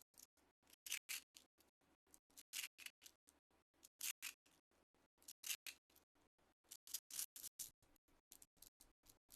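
Slime being squeezed and pressed by hand: a quick run of small crackling clicks, with louder crackly bursts about every second and a half.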